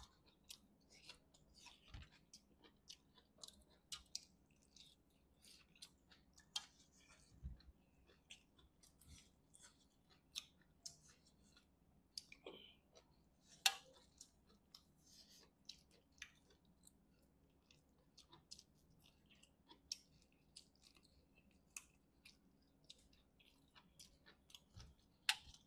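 Faint close-up eating sounds of chicken curry eaten by hand: chewing, with many irregular sharp mouth and lip clicks, one louder click about halfway through.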